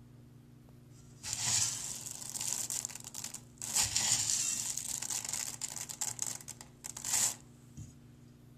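A hand raking through dry lentils in a metal pot, the lentils rustling and rattling as they shift. The sound comes in two stretches, with a short break about three and a half seconds in, and stops a little after seven seconds.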